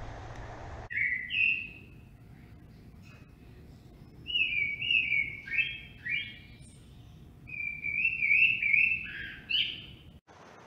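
Bird calls: short, bright chirped whistles stepping up and down in pitch, in clusters about a second in, again from about four seconds, and again toward the end.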